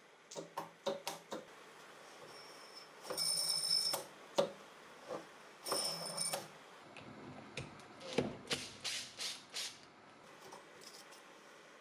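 Metal clicks, taps and scrapes of a screwdriver prying at the clutch plate and pulley of a car air-conditioning compressor, with two brief high-pitched metallic scrapes a few seconds in and a quick run of clicks near the end.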